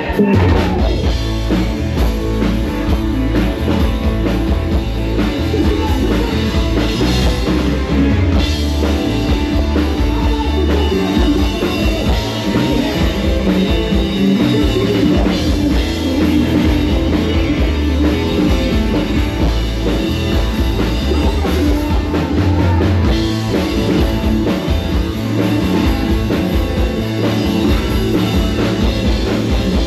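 Live rock band playing: electric guitar over a drum kit and bass, with some singing, kicking in loud at the start and running on steadily.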